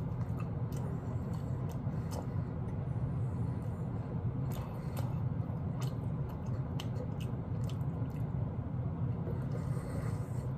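A person biting into a barbecue rib and chewing the meat close to the microphone, with scattered sharp clicks of teeth and mouth, over a steady low hum.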